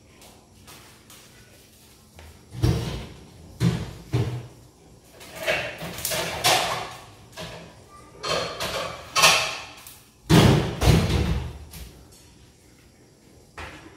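Kitchen handling noises: cupboard doors knocking shut and things being taken out and set down on the counter. There are a few heavy thumps about three and four seconds in, clattering and rustling in the middle, and two louder thuds about ten seconds in.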